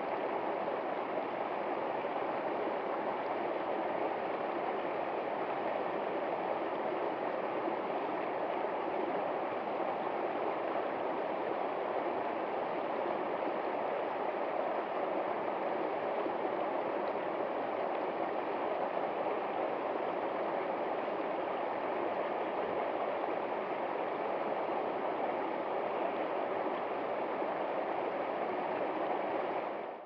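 A small woodland stream spilling over rocks in a short cascade into a pool, a steady rush of flowing water.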